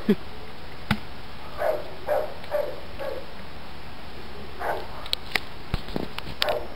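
Dogs barking in short runs of barks, about two a second, with gaps between the runs and a few sharp clicks in between.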